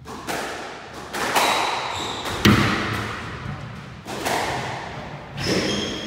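Squash ball struck by rackets and hitting the court walls in a rally: about six sharp cracks with an echoing tail, the loudest about two and a half seconds in.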